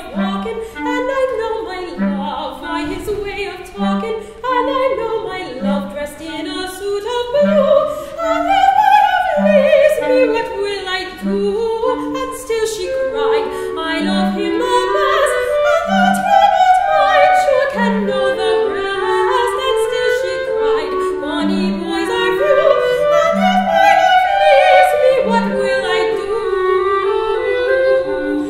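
Soprano singing a classical song in duet with a clarinet, which plays the piece's original violin part transcribed for clarinet. Beneath the rising and falling vocal line, short low notes recur about once a second.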